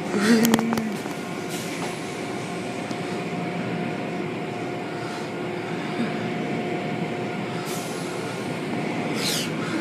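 Automatic car wash machinery running: a steady rushing noise with a constant hum. A short pitched sound comes about half a second in, and a quick falling swish near the end.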